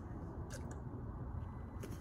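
Quiet room tone with a low hum and a few faint, brief clicks, about half a second in and again near the end.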